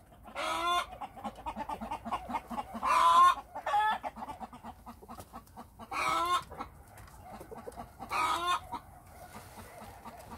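Korean native and Cheonggye chickens on their roost giving about five short clucking calls, each about half a second long and one to two and a half seconds apart.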